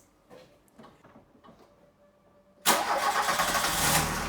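A few faint small clicks, then about two and a half seconds in a Volkswagen Golf Mk2's carburetted four-cylinder engine starts suddenly. It runs loud for a little over a second and settles to a steady idle. The freshly rebuilt engine knocks distinctly at first, a knock a workshop later traced to play in the camshaft.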